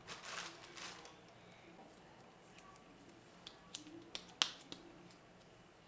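Faint handling sounds: a soft rustle of the staked houseplant's leaves and stems being moved at the start, then a few small, sharp clicks, the loudest about four and a half seconds in.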